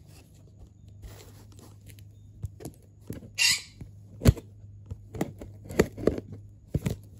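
Cardboard shipping box being worked open by hand: scattered clicks, knocks and scrapes of packaging. There is a short rasping tear about three and a half seconds in and a sharp knock just after it.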